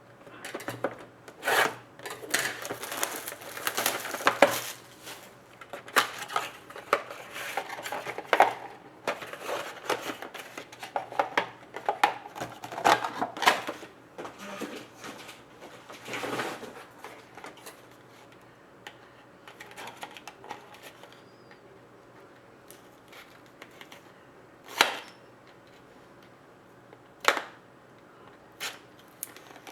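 Sports trading cards and their plastic packaging being handled: rustling and sliding, with many small clicks and taps. The handling is busy through the first half, then thins to a few scattered taps.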